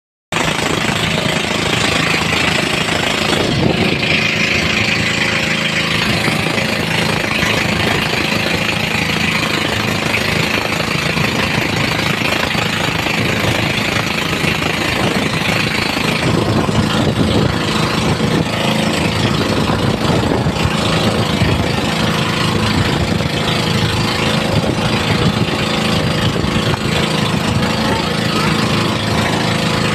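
Engine of a motorized outrigger boat (bangka) running steadily under way, with a constant hiss of wind and water rushing past.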